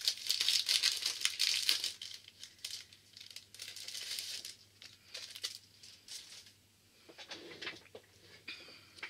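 A sheet of white cardstock being fetched and handled, rustling and crinkling. It is loudest in the first two seconds and again around four seconds in, with scattered light taps and clicks.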